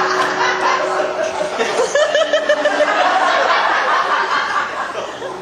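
Audience laughing and chuckling, a dense crowd laugh that fades toward the end.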